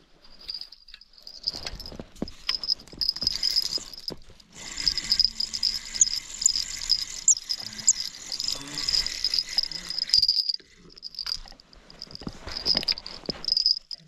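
Spinning reel being cranked, a rattling whir from about four and a half to ten seconds in, as a burbot bank line is wound in. Scattered handling knocks come before it, and a steady high-pitched chirring runs throughout.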